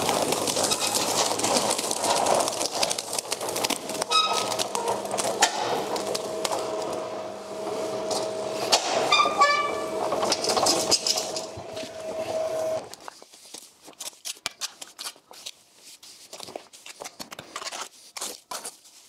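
Electric cement mixer running with a steady motor hum while its drum is tipped and a wet 1:4 cement-and-sand mortar pours out onto brick rubble, with two short squeaks along the way. The mixer stops abruptly about two-thirds of the way through, leaving scattered scraping and tapping of a trowel spreading the wet mix.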